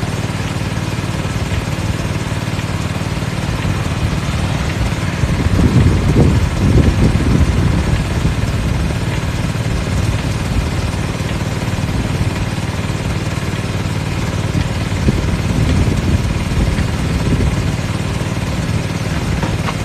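Small engine-driven air compressor running steadily, with a louder, rougher stretch about six seconds in.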